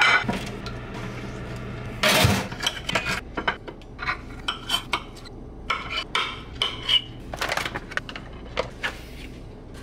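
Kitchen dish sounds: a steady low hum stops with a loud clatter about two seconds in, followed by a long string of short clinks and scrapes of cutlery against a dish.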